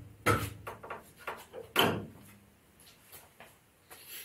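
A few scattered knocks and clunks of workshop handling around a car body on a rotisserie, the two loudest about a quarter second and almost two seconds in, then mostly quiet.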